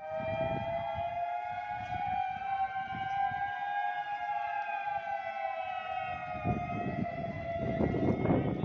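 A siren sounding one long, nearly steady tone that sags slightly in pitch, with low rumbling noise underneath that grows heavier near the end.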